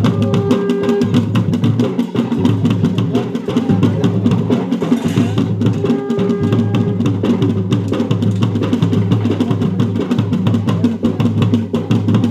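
Fast, steady ritual drumming of a Garhwali jagar, played to drive the devotees' possession dance; a short held tone sounds over it twice.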